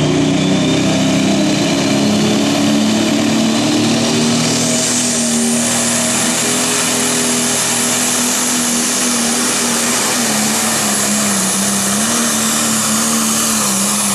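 Turbocharged diesel engine of a green John Deere Pro Stock pulling tractor running flat out under full load while dragging the weight-transfer sled. A high turbo whistle climbs steeply about four seconds in and then holds, over a steady engine note that wavers slightly near the end.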